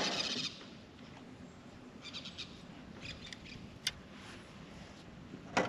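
Birds chirping a few times in short high calls, with a single click and then a sharp knock near the end; a brief louder noise opens the stretch.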